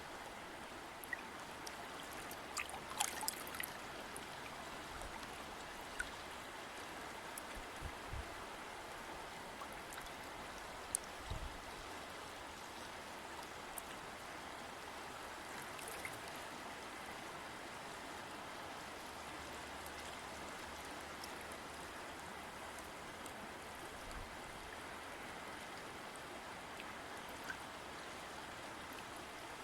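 River water flowing steadily, with a cluster of small splashes and drips about three seconds in and a couple of brief low thumps later.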